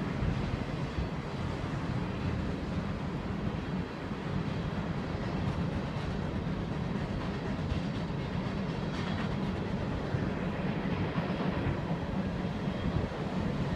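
Mixed freight train rolling past: a steady rumble of the cars' wheels on the rails.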